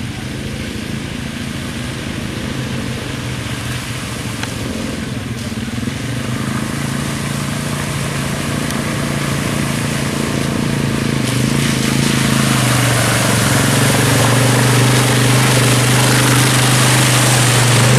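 ATV (quad bike) engine running as it drives along a muddy track, growing steadily louder as it approaches.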